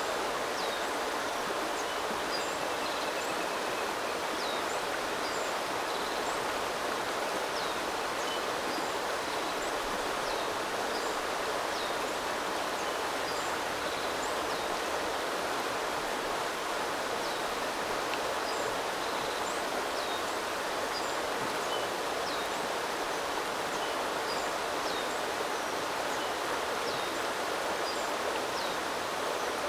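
A small river's water running steadily, with many short, high bird chirps scattered throughout.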